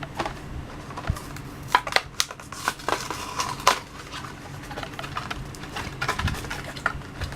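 A diecast toy car's plastic blister pack on its cardboard card being pried and torn open by hand: irregular crackling, snapping and clicking of plastic and card, busiest in the middle.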